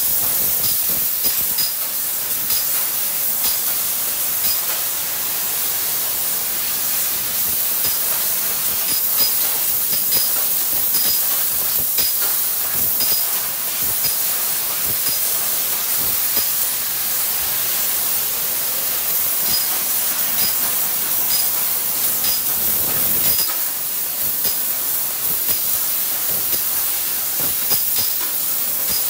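Sheet-metal laser cutting machine at work: a steady high hiss of the cutting head's assist-gas jet, with short high pips here and there and faint clicks.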